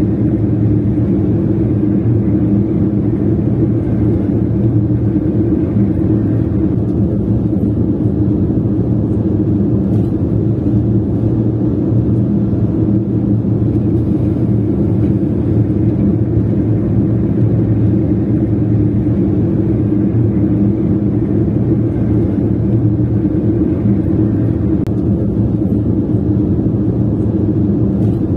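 Steady low rumble of a car being driven: engine and tyre-on-road noise, even throughout with no sudden sounds.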